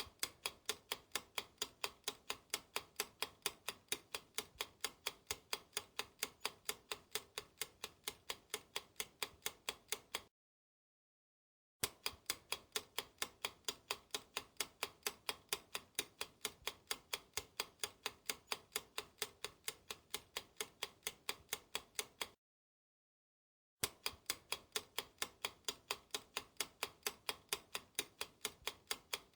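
Clock-ticking timer sound effect, about four even ticks a second. It stops dead twice for a second or so, then restarts, in runs of about ten seconds.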